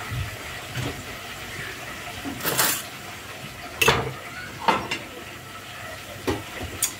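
Kitchen clatter: about six sharp metal clinks and knocks of utensils against pans and a metal tray, the loudest a little past two seconds in and near four seconds.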